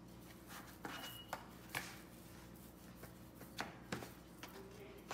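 Dough being rolled out with a wooden rolling pin on a floured cutting board: a few light, irregular knocks and clicks of the pin against the board.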